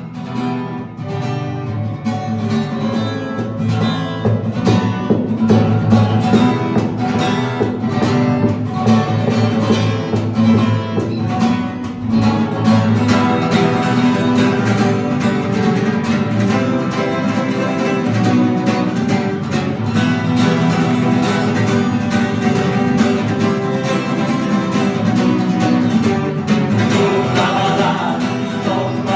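Strummed guitar playing the instrumental intro of a song, in a steady rhythm.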